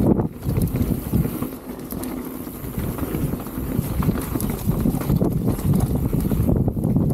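Specialized Status 160 mountain bike rolling over a rough bike-park trail: a continuous tyre rumble with many quick rattles and knocks from the bike over bumps, and wind buffeting the microphone.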